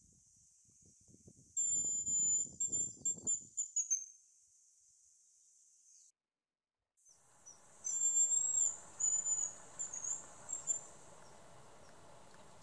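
Male hazel grouse singing its high, thin whistled song twice: each phrase a long note followed by a run of short notes.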